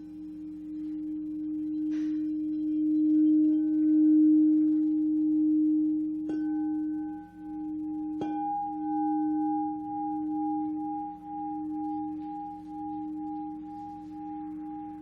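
Singing bowl ringing with a deep, sustained hum that pulses and wavers, struck again three times, about 2, 6 and 8 seconds in, each strike renewing a higher ringing overtone.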